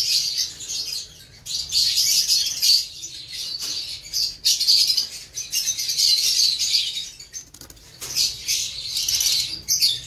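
Many lovebirds chattering and chirping together, a dense, continuous high-pitched chorus that swells and dips with a few short lulls.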